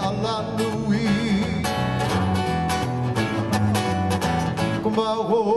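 Live Hawaiian band music between sung verses: acoustic guitar strumming over a stepping bass line, with a wavering melody line coming in near the end.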